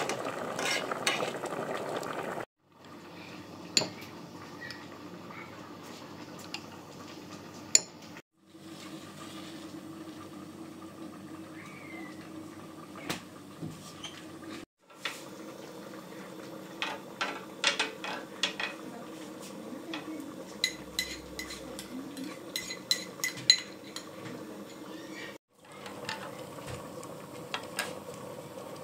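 A pot of lentil-and-meat halim bubbling at a hard boil for the first couple of seconds, then kitchen handling at a gas stove: a metal spoon and pans clinking and scraping, with many short sharp clicks in quick runs.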